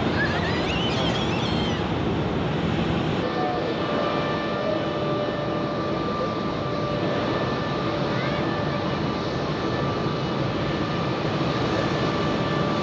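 Jet airliner engines running at taxi power: a steady rumble, with a whine of several steady tones coming in about three seconds in.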